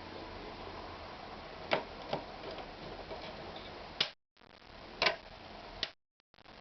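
A handful of separate sharp clicks, irregularly spaced, over a low steady hiss; the sound cuts out completely twice for a fraction of a second.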